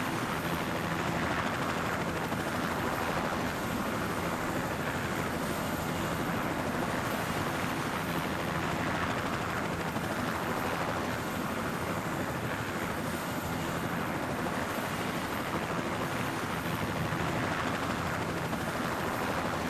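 Helicopter engine and rotor drone, running steadily with a constant low hum.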